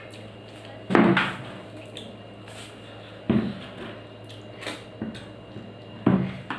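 Hand mixing rice on a stainless steel plate: three sudden knocks and scrapes, each dying away quickly, over a steady low hum.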